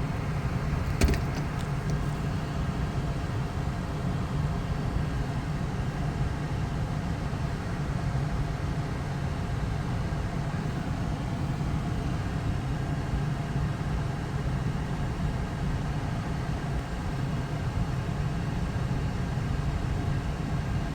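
Steady low rumble of a car engine idling, with a single sharp click about a second in.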